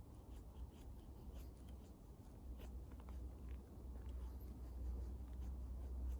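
Wood bonfire crackling, with frequent small irregular pops and snaps, over a low rumble that grows louder from about halfway through.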